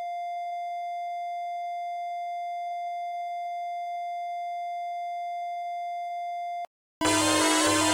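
A single steady electronic alert tone, held unchanged for about six and a half seconds and then cut off abruptly. Loud electronic music starts right after it, near the end.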